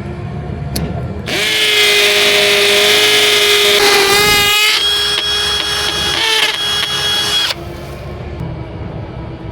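Power drill running for about six seconds: a steady motor whine that sags and wavers in pitch partway through, then holds a new steady pitch and cuts off suddenly.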